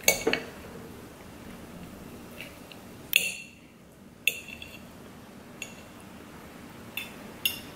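Metal fork and spoon clinking and scraping against a plate while picking at food: a handful of scattered clinks, the sharpest about three seconds in with a brief metallic ring.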